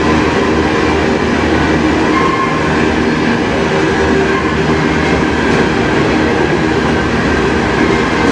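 Covered hopper cars of a freight train rolling past: a steady, loud rumble and rattle of steel wheels on the rails.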